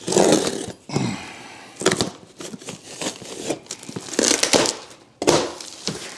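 Packaging being handled while a box is unpacked: irregular crinkling and tearing of wrapping and cardboard, with a few sharp knocks.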